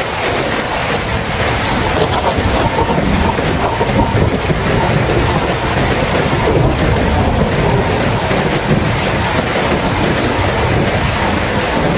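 Steady rain, with a low rolling rumble of thunder underneath that swells about two seconds in and carries on.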